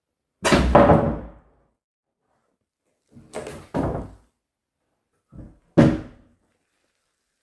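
A heavy door being slammed or banged shut repeatedly: five sudden bangs, the first about half a second in, then two close pairs, each ringing on briefly.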